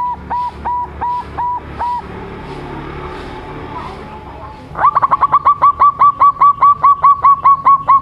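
Young zebra dove (perkutut) cooing: a run of short coo notes, each sweeping up at its start, stops about two seconds in. After a pause, a longer, faster run of the same notes begins at about five seconds.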